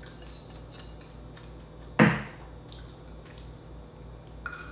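Wooden spoon scooping garlic butter sauce in a glass bowl and moving it to a plate of rice: faint light clicks and wet sounds, with one sharp knock about two seconds in.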